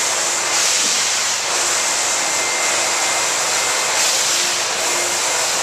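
Wet-extraction floor wand running steadily as it sucks rinse water and foam off a stone floor: a loud, even rushing hiss with a faint steady whine underneath.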